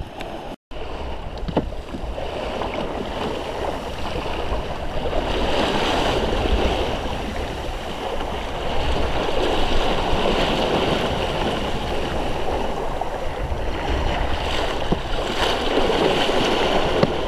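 Water rushing and splashing along the wooden hull of a Mirror dinghy sailing through choppy sea, swelling and easing with the waves, over a low rumble of wind on the microphone.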